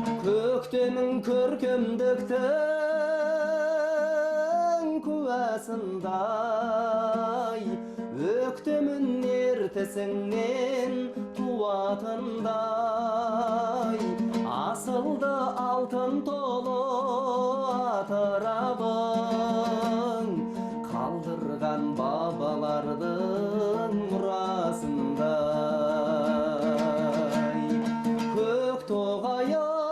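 A slow song: a melody sung with wide vibrato in long phrases, over plucked-string accompaniment and steady held notes underneath.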